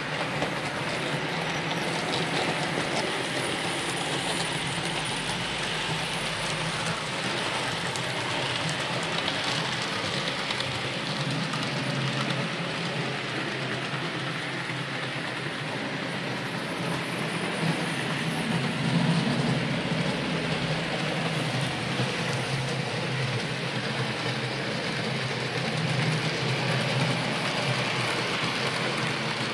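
Hornby 00 gauge model trains running on the layout track: a steady hum of small electric motors with the rattle of wheels on the rails, swelling briefly about two-thirds through.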